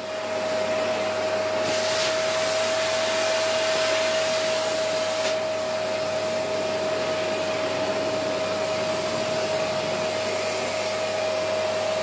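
Canister vacuum cleaner running steadily, its motor holding one constant whine over the rush of air through the hose. The hiss of the suction grows brighter for a few seconds, from about two to five seconds in, then settles.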